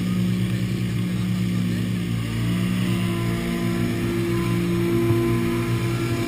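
A car engine idling steadily, its pitch shifting slightly about two and a half seconds in.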